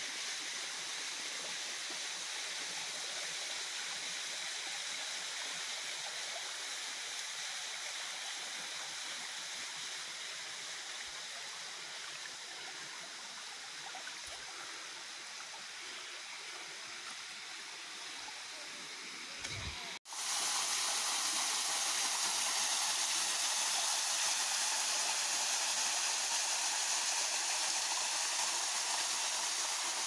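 Rushing water of a rocky jungle stream, a steady hiss. About two-thirds of the way through it breaks off for an instant, then comes back louder and brighter.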